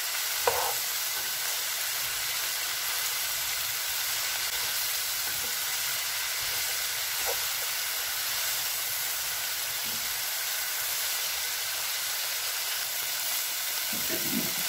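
Shredded cabbage, bell peppers, carrots and peas sizzling in oil in an open pan as a steady hiss. A few light knocks come from the spatula against the pan as the vegetables are stirred, the sharpest one about half a second in.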